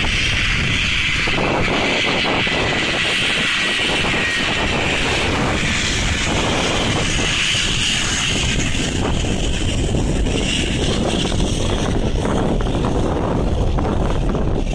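Jet airliner taking off and climbing away, its engines at takeoff power heard as a steady, distant rush of engine noise with a high hiss. Wind buffets the microphone underneath.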